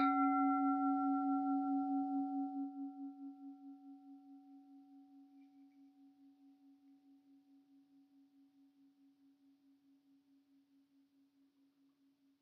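Large brass Tibetan singing bowl struck once, ringing with a slow pulsing waver and fading away over about ten seconds; it is the opening sound that starts the session.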